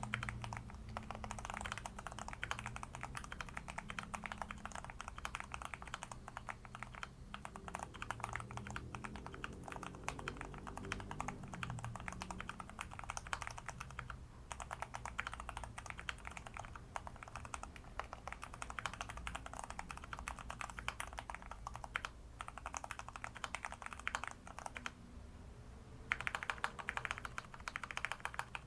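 Continuous typing on a mechanical keyboard with lubed Huano RK brown tactile switches: a dense, rapid run of key clacks, pausing briefly about 25 seconds in before starting again.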